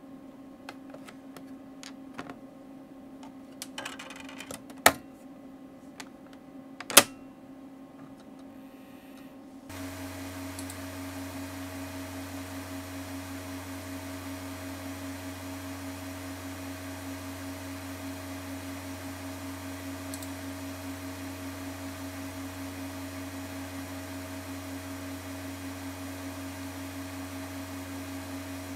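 Steady hum of a running Macintosh Quadra 700, with scattered light clicks and two sharp clicks in the first several seconds. About ten seconds in the hum grows louder and a low drone joins it.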